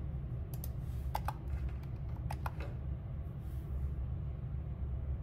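Computer keyboard keys clicked a handful of times, as the installer's console prompts are confirmed, over a steady low hum.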